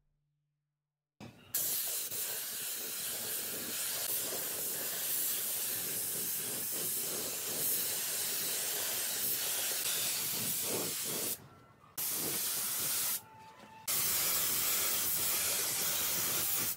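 Compressed-air gravity-feed spray gun hissing as it sprays, starting about a second and a half in: one long burst of about ten seconds, then two shorter ones with brief pauses between.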